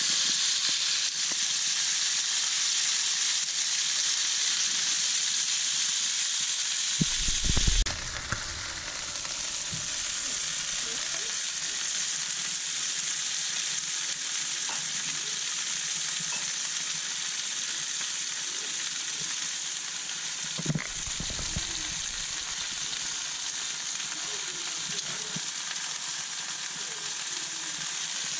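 Thick oiled chuck steak searing in a dry, preheated cast-iron pan: a steady, even sizzle as the meat browns. Two dull bumps break in, a louder one about seven seconds in and a lighter one about twenty-one seconds in.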